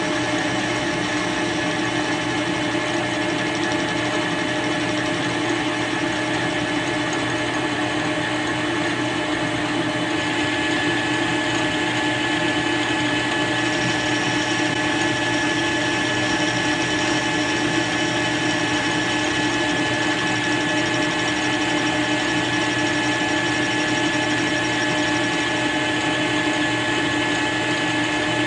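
Metal lathe running with a steady gear whine while a carbide insert tool turns the weld build-up on a steel clutch shaft. About ten seconds in, a higher whine joins in.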